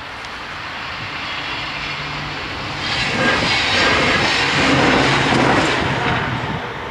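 A passing vehicle: a rushing noise with a low hum swells about three seconds in, peaks, and fades toward the end.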